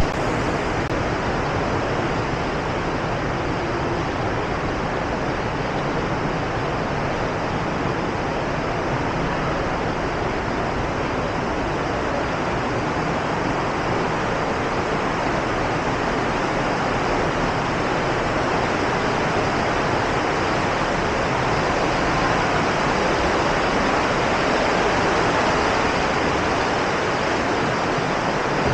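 Steady rush of fast-flowing water, loud and unbroken, growing a little louder near the end.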